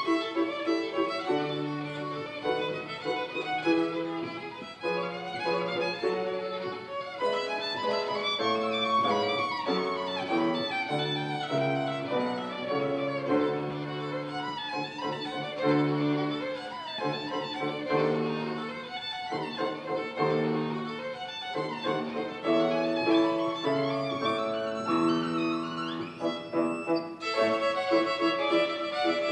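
Violin played with a bow: a continuous melody of held and moving notes.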